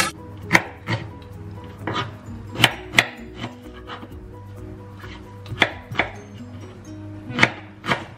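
Kitchen knife chopping ginger on a bamboo cutting board: sharp, irregular knocks of the blade on the wood, about a dozen strokes in small clusters.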